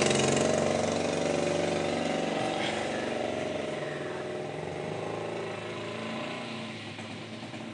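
An engine running steadily, its hum gradually getting quieter.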